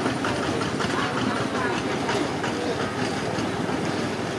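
Steady rush of flowing floodwater, an even noise without pauses, with faint voices in the background.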